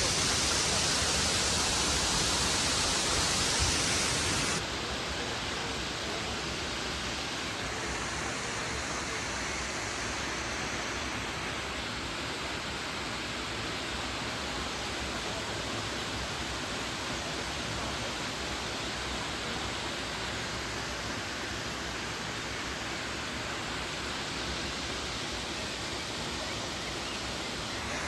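Waterfall's rushing water, a steady even hiss. It is louder and brighter at first, then drops abruptly to a lower steady level a little over four seconds in.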